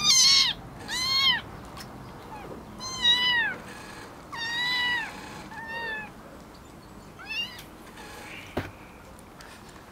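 Young kittens mewing: six high-pitched mews, each rising and falling in pitch, spaced out over about seven seconds. A single short knock near the end.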